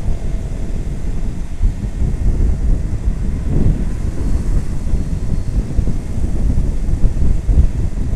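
Wind buffeting the microphone of a moving motorcycle: a continuous low rumbling rush that swells and dips, with the motorcycle's road and engine noise mixed in.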